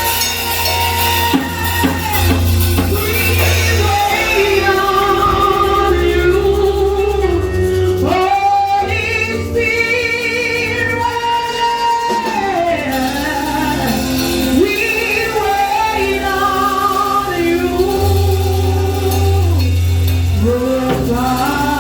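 Church worship song: a singer's wavering melody over instrumental backing with steady low bass notes.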